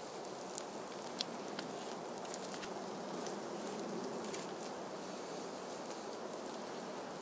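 Campfire crackling, with a handful of sharp pops over a steady background hiss.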